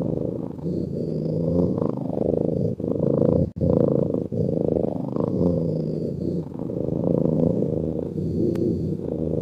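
A sleeping cat's steady, low rumbling breaths, swelling and easing with each breath. The sound breaks off for an instant about three and a half seconds in.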